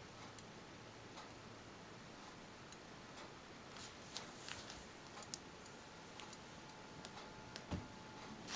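Quiet room tone with scattered faint clicks at an uneven pace, a few sharper ones midway and a soft thump near the end.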